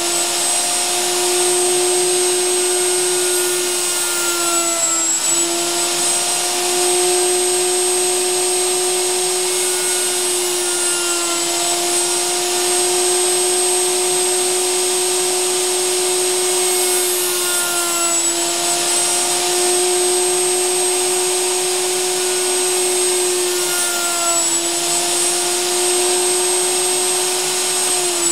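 Table-mounted electric router running steadily with a high whine, its pitch sagging briefly several times as the bit bites into the wood, cutting transverse decorative grooves across the edge of a pine shelf.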